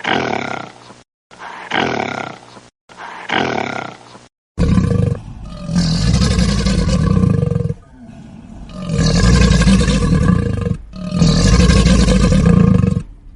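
An animal call repeated four times, about one a second. Then comes a sudden change to a large wild animal's deep roars: three long roars of about two to three seconds each, heavy in the low end.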